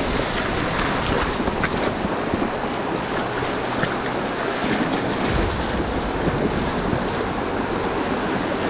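Small waves washing onto a stony shore with wind buffeting the microphone, and the splashing of wading boots stepping through shallow water.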